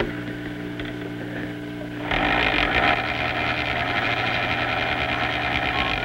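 Film projector with a steady electrical hum; about two seconds in, its mechanism starts running with a fast, even clatter over the hum.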